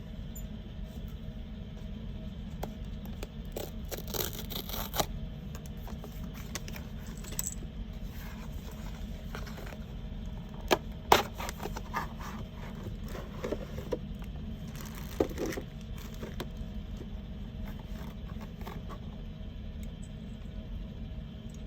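Unboxing handling: packaging and small plastic camera accessories being unwrapped, scraped and clicked together, with a few sharp clicks. A steady low rumble runs underneath.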